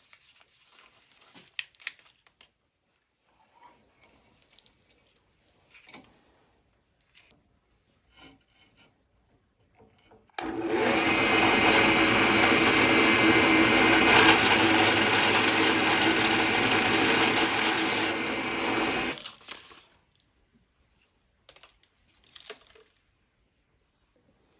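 Drill press running, its bit cutting a large hole through a metal gas cap. It starts about ten seconds in, runs steadily for about eight seconds, then winds down. Before it there are faint clicks and paper rustles as the cap is set in the vise.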